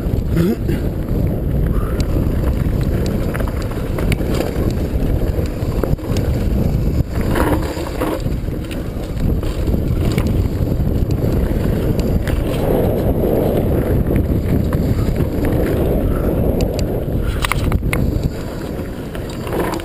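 Mountain bike ridden fast down a dirt forest trail: a steady rumble of tyres on dirt and wind buffeting the body-mounted camera's microphone, with a few sharp knocks over bumps.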